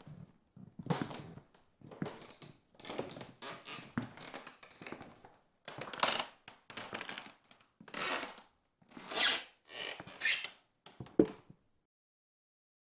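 A run of about a dozen separate drawn-out creaks, some low and groaning, others high and scratchy, ending about eleven and a half seconds in.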